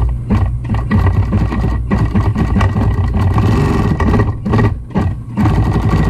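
Consew 226 industrial walking-foot sewing machine stitching through vinyl upholstery: the steady hum of its clutch motor under a fast, even clatter of needle and feed strokes. The machine is being test-sewn right after a hook replacement to check the hook timing.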